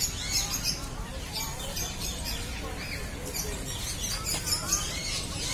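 A flock of small caged parrots (lovebirds) chattering, with many quick, high, overlapping chirps.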